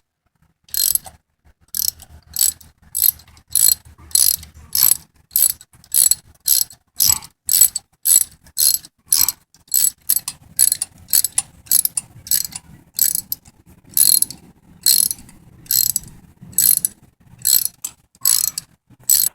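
Ratchet wrench clicking in short, evenly spaced strokes, about one and a half a second, as it turns double-nutted cylinder studs out of an engine.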